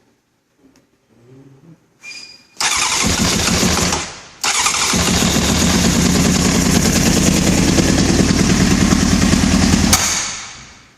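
1996 Honda CBR900RR inline-four being cranked on its starter motor: a short burst of cranking, a brief pause, then a longer crank of about five seconds that stops. The engine turns over with a steady pulsing but does not catch, the bike's no-start fault.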